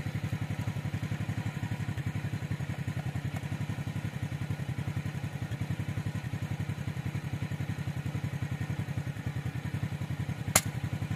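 A single sharp air rifle shot near the end, over a steady engine chugging with an even rapid beat.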